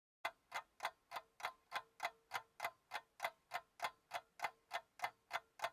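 Clock ticking, about three even ticks a second over a faint steady tone, starting a moment in: a ticking-clock sound effect laid over the footage.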